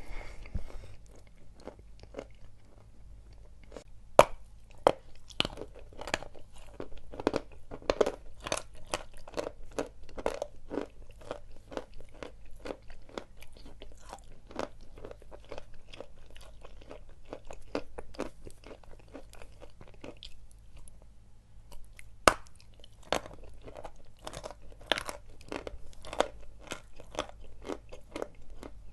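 A person biting and chewing lumps of dry chalk coated in clay paste: a steady run of crisp crunches, two or three a second. A few bites are much louder, one a few seconds in and another just after a short lull about two-thirds of the way through.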